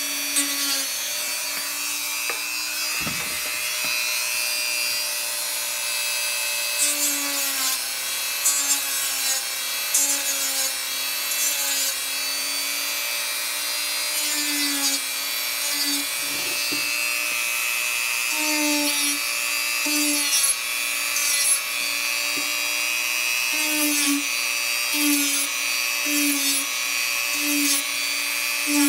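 Hyper Tough 1.5 amp rotary tool running at high speed, sanding, with a steady whine over a hiss. The whine swells and dips again and again, about once a second in the second half, as the sanding bit is worked against the piece.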